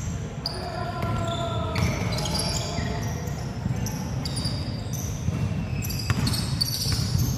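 Basketball being dribbled on a hardwood gym floor, with many short high squeaks of sneakers on the court.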